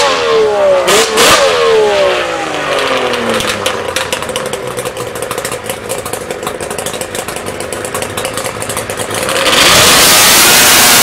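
Engine of a drag-racing ATV, an 1100cc Arctic Cat engine in a stretched Banshee quad frame. It is blipped hard twice and its pitch falls as it winds down. It then settles into a steady lower running note, and about nine seconds in it goes to full throttle, becoming much louder with a hissing, rushing roar.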